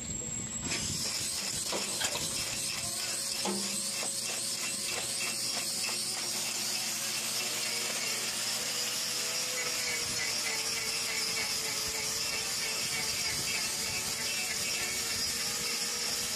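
Electric hoof grinder running steadily against a cow's hoof: a continuous grinding hiss with a motor whine that wavers in pitch, starting about a second in.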